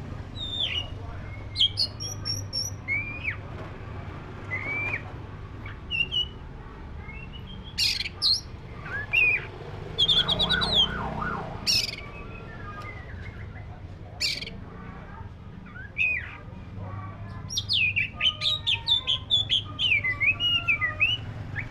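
Oriental magpie-robin of the black-breasted form (kacer dada hitam) singing: scattered whistled notes that rise and fall, with a few short sharp notes, turning into a fast, continuous run of varied whistles about three-quarters of the way through.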